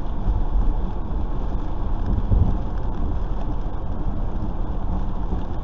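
Steady road noise inside a car driving on a wet freeway in the rain, tyres and engine making a low rumble.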